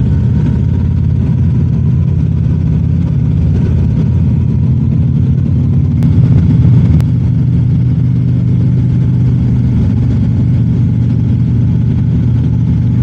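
Harley-Davidson V-twin motorcycle engine running steadily under way, with a brief swell in the engine sound about six to seven seconds in.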